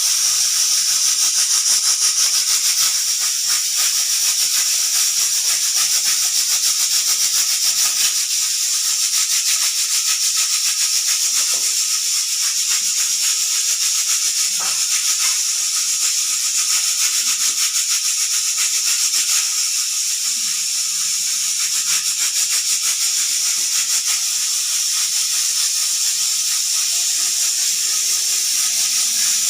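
Pressure cooker venting steam under its whistle weight: a steady, loud hiss with a fast, fine rattle of the weight jiggling on the vent.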